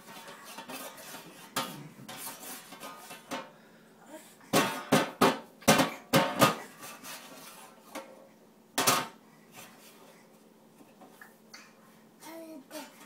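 A baby drumming with his hands on the domed lid of a stainless steel pedal trash can: irregular metallic slaps. They are light at first, then come as a quick run of about six hard strikes in the middle and one more loud strike a few seconds later.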